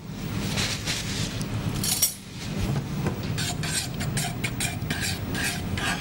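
A metal spoon stirring tea in a pot on the stove, with repeated scrapes and clinks against the pot that come at about three a second in the second half.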